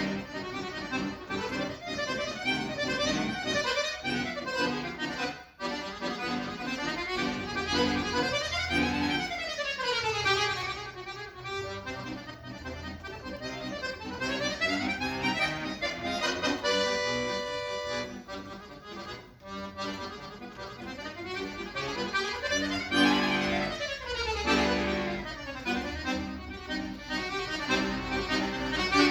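Solo accordion playing: fast runs sweeping up and down in pitch over low bass notes and chords, with one chord held briefly about midway.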